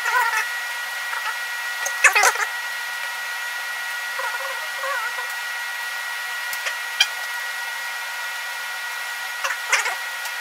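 Fast-forwarded build audio: short, high-pitched chipmunk-like chatter of sped-up voices over a steady hiss and whine, with a couple of sharp clicks in the middle.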